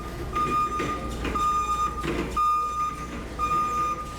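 Backup alarm beeping: a single high electronic beep, each one lasting over half a second, repeating steadily about once a second.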